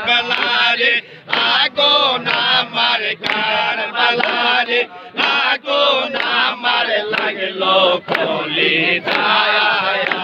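A crowd of men chanting dhikr (jikir) together, loud repeated phrases with brief breaks between them.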